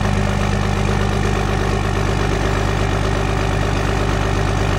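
A 2007 Dodge's 5.9-litre Cummins inline-six turbo-diesel idling steadily through twin 7-inch exhaust stacks. The engine is still warming up after a cold start, its exhaust steaming white.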